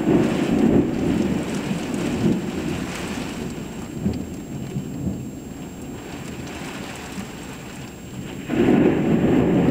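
Heavy rain falling hard during a thunderstorm, with two peals of thunder: one breaks right at the start and rumbles away over a few seconds, and a second breaks in near the end.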